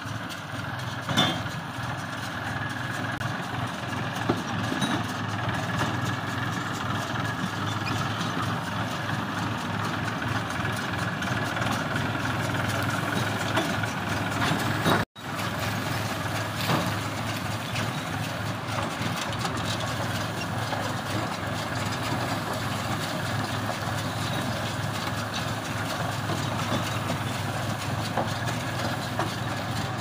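New Holland diesel tractor running steadily as it pulls a Kartar Speed Baler working through dry straw. There is a sharp knock about a second in, and the sound cuts out for a moment about halfway.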